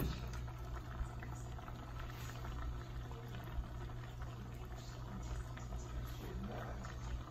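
Pot of salted noodle water boiling on high on a stovetop, a steady even sound with a constant low hum underneath.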